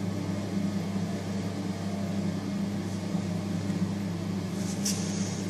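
A steady low mechanical hum, like a motor or fan running, with a brief hiss near the end.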